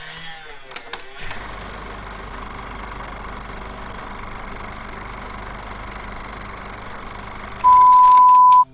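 Old film projector running, a steady whirr and hiss with a few clicks early, as heard under a film countdown leader. Near the end a steady high beep sounds for about a second, louder than the whirr.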